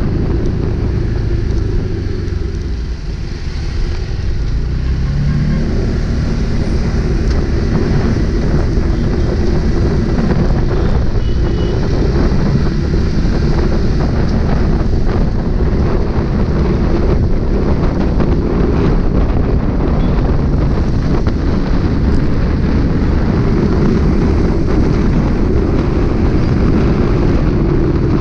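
Engine of a moving road vehicle running steadily under heavy wind noise on the microphone. A low engine tone rises about five seconds in as the vehicle picks up speed after easing off.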